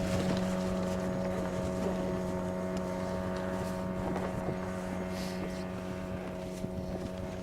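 Outboard motor on an inflatable PVC motorboat running at a steady speed, its pitch unchanging, slowly getting quieter.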